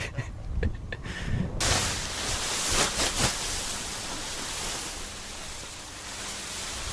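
Wind buffeting the microphone. About a second and a half in, a steady rushing hiss cuts in abruptly and carries on over a low rumble.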